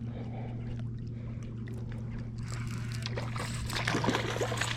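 Steady low hum of a boat motor, with water splashing and trickling and small knocks that grow louder from about halfway, as a bass is brought in at the boat.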